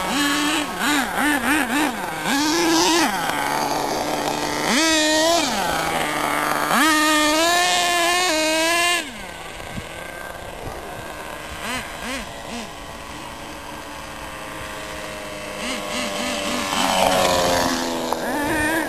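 Radio-controlled model airplane's engine in flight, revved up and down repeatedly by the throttle. About nine seconds in it drops much quieter as the plane flies far off, then grows louder again near the end, its pitch falling as the plane passes low over the runway for a touch-and-go.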